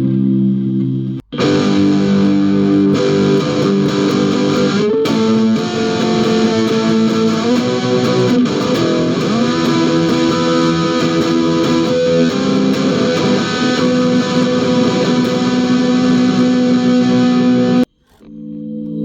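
Electric guitar, a Mexican Fender Stratocaster played with the fingers, through a Hotone Pulze Mini modelling amp with effects, playing held chords and notes. The sound cuts out briefly about a second in, and stops suddenly near the end before a different tone comes in.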